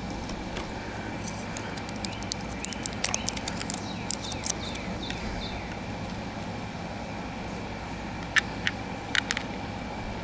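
Batteries being handled and fitted into the plastic battery compartment of a digital fish scale: scattered small clicks and ticks, clustered in the first half, with a few sharper clicks near the end. Under it runs the steady hum of an air conditioner.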